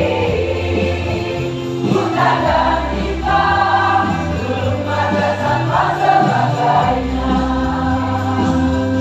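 A large mixed choir singing a song in long held notes over a musical accompaniment with low bass notes. The voices swell fuller in the middle.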